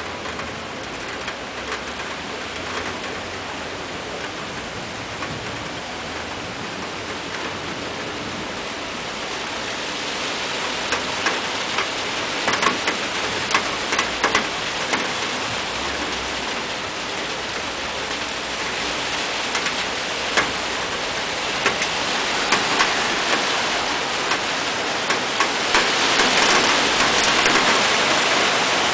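Heavy downpour: a steady hiss of rain that grows louder as it goes, with sharp taps of drops striking close by, coming more often from about ten seconds in.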